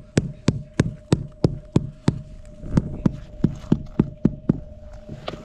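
Rapid, evenly spaced sharp knocks, about three a second, over a steady hum; the knocking stops about four and a half seconds in.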